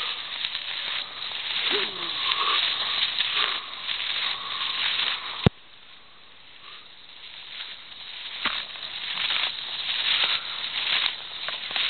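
Cross-country skis skating on groomed snow: a hissing scrape that comes and goes with each push of the stride. About five seconds in there is a sharp click; the scraping then drops away and gradually builds back up.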